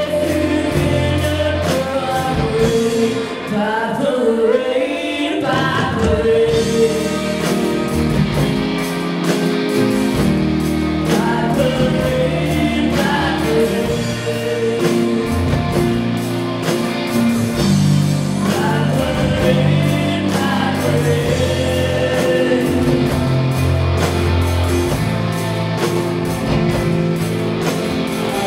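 Live rock band playing: female voices singing over electric guitar, bass guitar, drums and keyboard.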